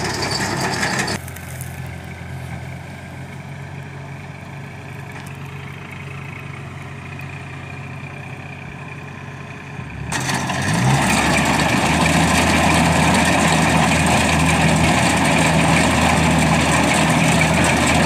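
Kubota rice combine harvester's diesel engine running steadily as it cuts and threshes rice. It is quieter for most of the first half and louder again after about ten seconds, when a short rise in engine pitch is heard.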